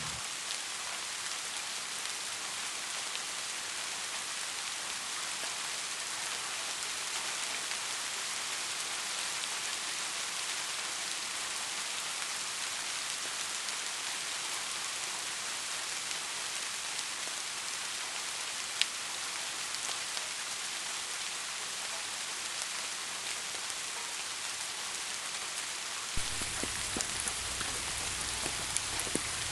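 Steady rain falling on a surface: an even hiss dotted with drops, with one sharp, louder drop about two-thirds of the way through. Near the end a low rumble joins, along with a few louder drops.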